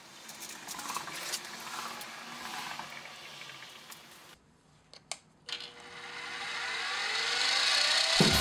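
A few faint clicks of small metal parts being handled, then, after a short gap, a milling machine's end mill whirring as it cuts an aluminium block, growing steadily louder with rising tones.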